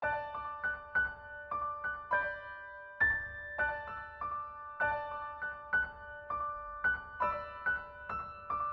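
Background music: a slow, gentle piano melody of single notes, each ringing on and fading.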